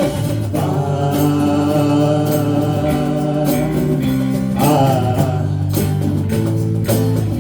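Live band music with guitar and long held sung notes.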